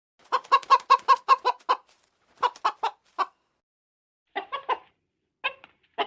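Chicken clucking: a quick run of about eight short calls, then shorter groups of three or four calls with brief pauses between them.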